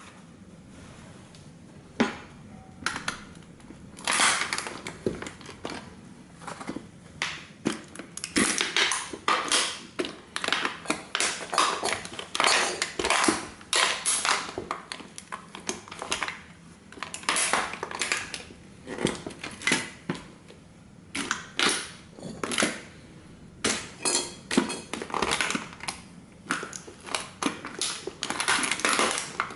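Vintage tin-plate toy car being crushed slowly under the weight of heavy boots, its thin metal body crumpling and bending in a long, irregular run of sharp cracks, creaks and crunches that starts about two seconds in.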